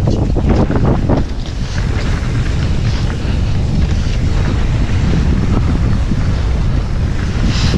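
Wind buffeting the microphone of a rider's camera while mountain biking downhill, a loud steady rumble, with a run of rattling knocks in the first second or so.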